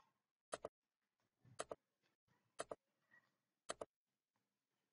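Near silence broken by four faint double clicks, about one a second.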